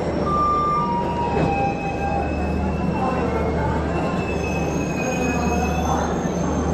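Passenger coaches of an arriving express train rolling slowly along the platform, with a steady low rumble and thin, high metallic squeals from the running gear that drift slightly in pitch and come and go.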